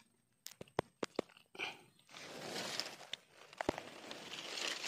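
A few sharp clicks in the first second and a half, then rustling and crunching of dry grass and fallen leaves as a fish is handled and moved near the ground.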